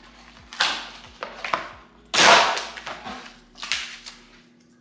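Cardboard and paper packaging being torn open by hand: several sharp rips, the loudest and longest a little past two seconds in.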